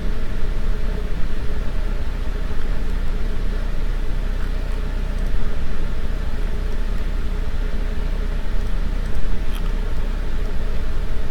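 Steady low hum with hiss over it, unchanging throughout, and a few faint clicks near the end.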